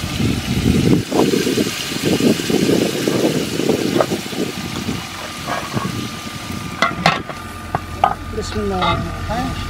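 Rough low noise for the first five seconds, then a metal ladle clinks against an aluminium cooking pot a few times as browned duck meat is stirred over a wood fire.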